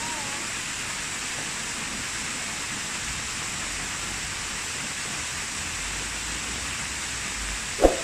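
Waterfall pouring into a plunge pool: a steady, even rush of falling water. A single short, loud blip sounds near the end.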